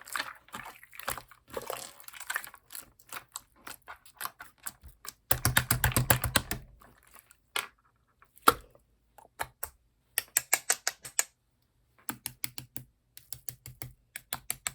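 Slime being squeezed and poked by hand, giving bursts of quick, crisp clicks and pops. About five seconds in there is a denser, heavier stretch of squishing with low thuds, and a single loud pop comes a few seconds later.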